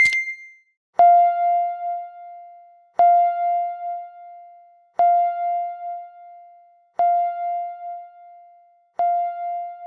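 Timer sound effect as the countdown hits zero: a click with a short high beep, then a bell chime struck five times, two seconds apart, each ringing out and fading.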